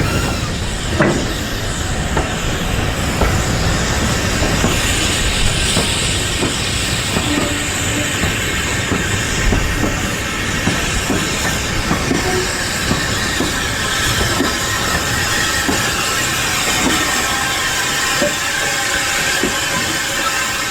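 Steam-hauled train on the move, a heavy rumble with the wheels knocking over the rail joints. A thin high wheel squeal comes in about halfway through.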